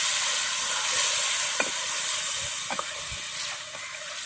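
Chicken, potatoes and ground spices sizzling in hot fat in a pot while being stirred, with a few light scrapes of the spoon. A steady hiss that eases slightly near the end.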